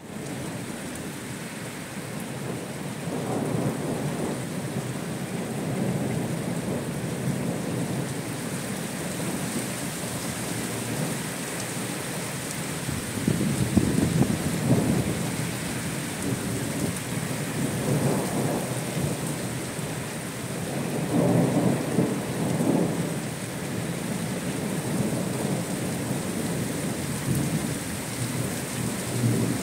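Heavy rain falling steadily on a gravel yard, a continuous hiss, with low rumbles swelling up several times, the strongest about a third of the way in and again two-thirds in.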